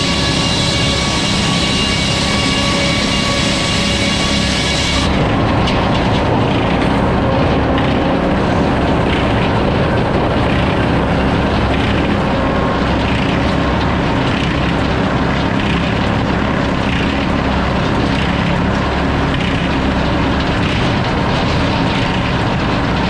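Sawmill running steadily, with a high whine from the saw in the cut that stops suddenly about five seconds in; the mill's motor runs on steadily afterwards.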